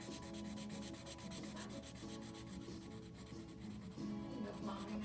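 Felt-tip marker scribbling on paper, colouring in with quick back-and-forth strokes, several a second. Faint music with held notes underneath.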